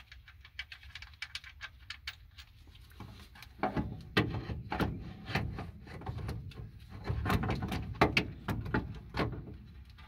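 A loosened starter motor being worked free by hand from the engine's bellhousing: irregular metal clicks, knocks and scrapes, louder and busier from about the middle on.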